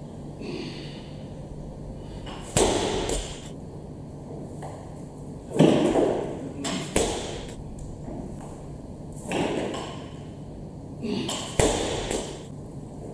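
Barbell and bumper plates thudding and clanking onto the gym floor about five times, a couple of seconds apart, each knock followed by a short metallic ring and echo; the loudest comes a little before halfway through.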